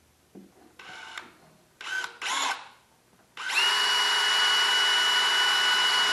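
Cordless drill driving a screw: three short bursts on the trigger, then one steady run of about three seconds with a high, even whine from the motor.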